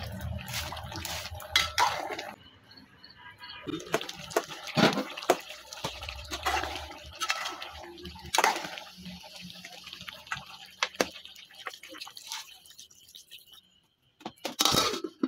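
A metal spoon stirring a chicken and pumpkin curry in an aluminium pot: irregular clinks and scrapes of the spoon against the pot, with the sauce sloshing.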